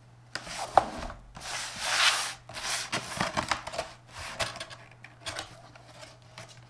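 Cardboard box being handled and opened: rubbing and scraping of cardboard as the box is turned over and its lid and inner flaps are pulled open, with a sharp knock about a second in.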